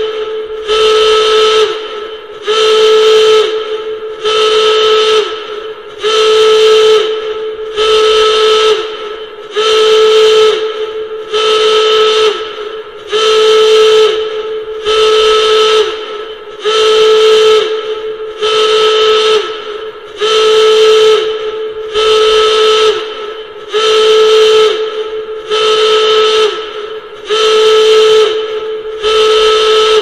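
Alarm signal sounding a loud, horn-like blast about every two seconds, each blast a steady tone with a breathy hiss that slides down briefly as it cuts off.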